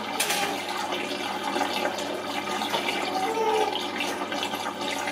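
A steady rushing noise, with a short knock just after the start and a brief high, wavering tone about three and a half seconds in.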